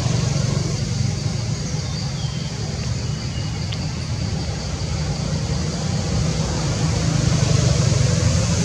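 Steady low outdoor rumble, growing slightly louder toward the end, with a faint high buzz above it.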